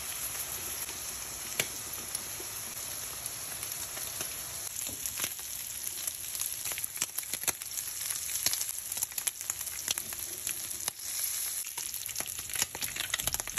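Onion and tomato sauce sizzling in a frying pan on the stove: a steady hiss with scattered crackles and pops that come more often in the second half.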